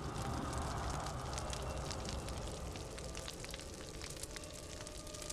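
Crackling fire: a steady low rush and rumble with frequent sharp pops and crackles. It is most likely a sound effect, since the skulls only glow from lights inside them.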